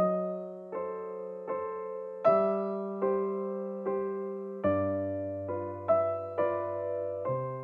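Background music: a slow, gentle piano melody, single notes struck about every three quarters of a second, each ringing and fading.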